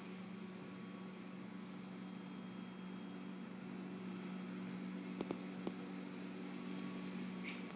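A steady low hum with a faint hiss under it, and two light clicks about five seconds in.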